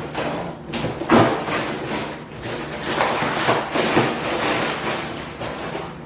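A new toilet seat being unpacked from its cardboard box and plastic bag: rustling and scraping with several knocks, the sharpest about a second in.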